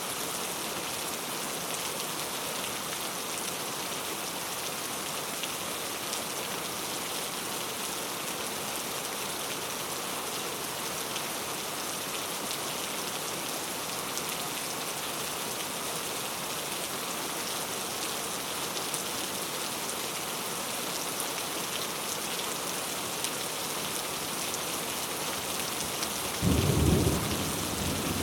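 Steady rainfall, an even hiss of drops. Near the end there is a sudden, short, low clap of thunder lasting about a second and a half.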